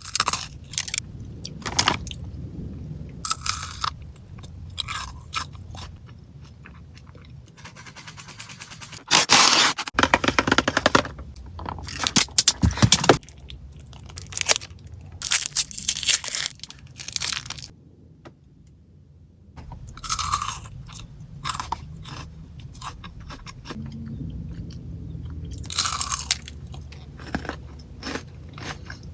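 Close-up crunching and chewing of Ferrero Rocher chocolates, the wafer shell and hazelnut pieces cracking between the teeth, in many short sharp crunches. A loud, dense spell of crackling and crunching comes about nine seconds in, and there is a brief lull later on.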